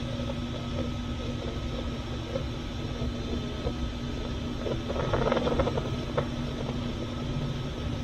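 Steam rushing out of an Instant Pot's pressure-release valve during a quick release, a steady rushing noise, with a brief louder sputtering burst about five seconds in.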